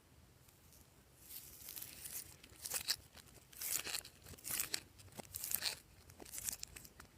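Glossy slime being squeezed and stretched by hand, giving about six short crackly bursts that begin about a second in.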